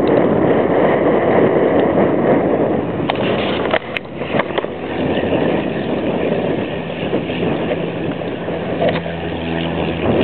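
Single-engine Piper light aircraft's piston engine and propeller at full power on the takeoff roll of a touch-and-go, coming closer. Near the end the steady propeller and engine tones come through plainly as the plane lifts off.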